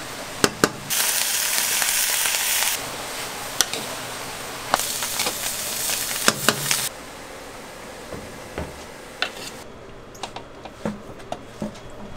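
Thin root strips sizzling in a sweet glaze in a hot pan as they are stirred with a metal spatula, in the final coating stage. The sizzle rises loudly twice, with the spatula clicking and scraping against the pan, then settles to a low hiss with scattered light clicks.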